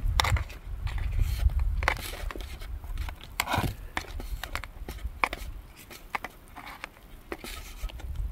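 A metal fork scraping and clicking against a thin aluminium foil pan as potatoes are scooped out, in irregular short strokes, the loudest scrape about three and a half seconds in. A low rumble runs under the first two seconds.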